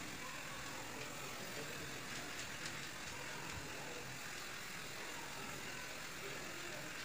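Steady mechanical hum with a constant hiss, with a few faint light clicks.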